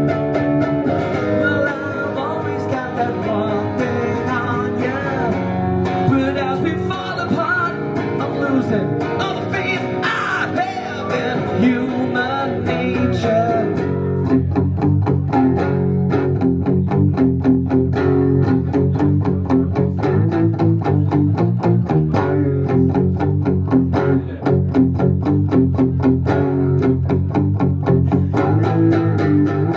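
Live rock band playing an instrumental passage led by guitar: for about the first half a wavering melody runs over sustained chords, then it changes to quick, even strummed guitar chords.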